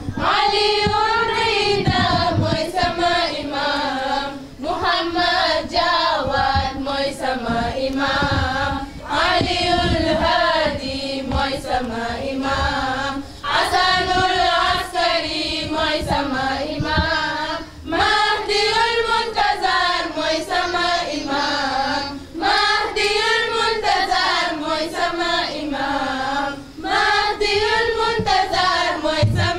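Voices chanting a latmiya, a Shia mourning elegy for Imam Hussein, in short sung phrases with a wavering pitch and brief pauses between them.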